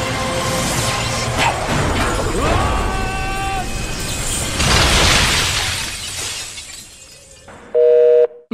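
Dramatic soundtrack music laced with crashing, shattering sound effects, swelling into a loud rush about five seconds in and then fading away. A brief, loud, steady tone sounds near the end and cuts off.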